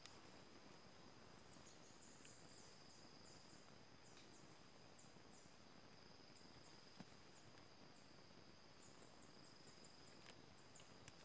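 Faint insect sound: a steady high-pitched drone, with clusters of quick, very high chirps that fall in pitch and a single small click about seven seconds in.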